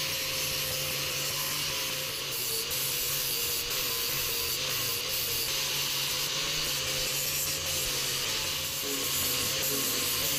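Handheld angle grinder running under load, its disc grinding the steel head of an Estwing hatchet: a steady hiss of abrasive on metal over a constant motor whine, unbroken throughout.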